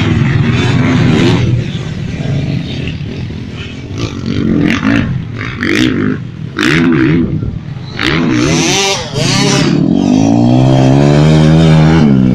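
Pit bike engine revving in a series of short bursts, then running loudest in one long pull near the end as the bike rides past close by.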